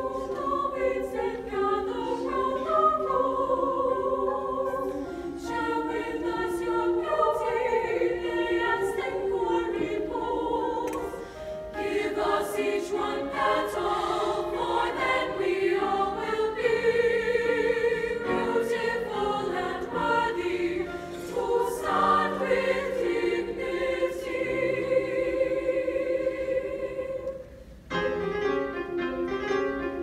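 Women's choir singing a choral piece in several parts with piano accompaniment; the voices briefly drop away near the end before coming back in.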